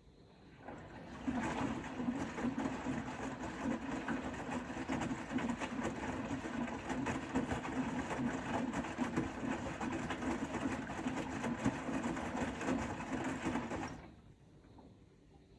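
Bosch Serie 4 WAK20260TR washing machine's drum turning during a wash programme, running for about thirteen seconds before stopping abruptly near the end.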